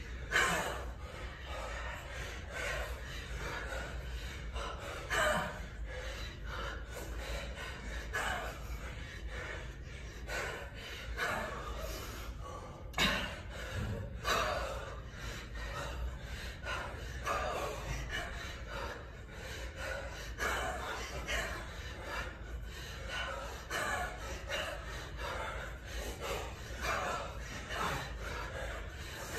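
A man's heavy, rhythmic breathing while lifting a kettlebell overhead repeatedly: short, forceful exhales about once a second, with two sharper ones, one right at the start and one about halfway through.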